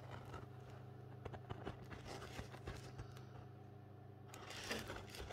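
Faint rustling and small clicks of a diamond painting canvas under its clear plastic cover being handled, with a little more rustle near the end, over a steady low hum.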